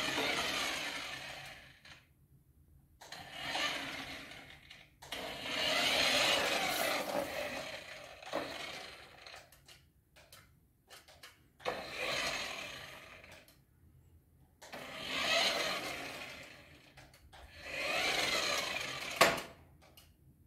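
Small electric motor and gears of a 1/14-scale RC car whirring in six bursts as it drives in short runs across a stone-tile floor, each run one to three seconds long, swelling and fading. A few sharp clicks come between runs, and there is a sharp knock near the end.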